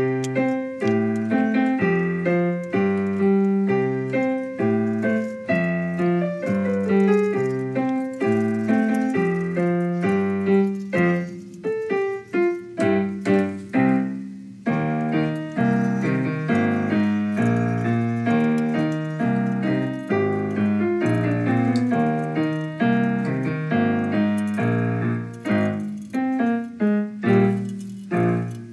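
Background music played on piano or electric keyboard, a steady run of chords and melody notes that starts suddenly at the outset.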